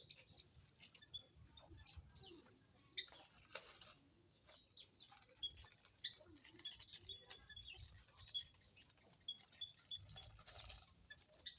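Common ioras chirping faintly: many short, high chirps and ticks scattered throughout, with a run of quick repeated short notes in the second half.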